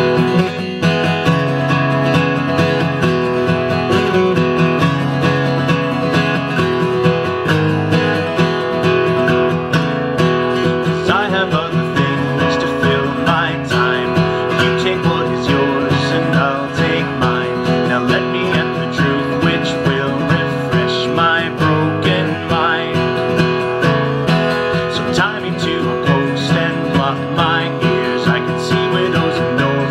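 Folk-rock instrumental break led by strummed acoustic guitar, with a higher wavering melody line playing over it from about ten seconds in.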